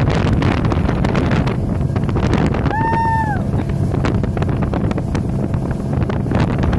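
Wind buffeting the microphone over the steady rumble of a speeding boat's engine and wake. About three seconds in, a brief high-pitched tone sounds and falls away at its end.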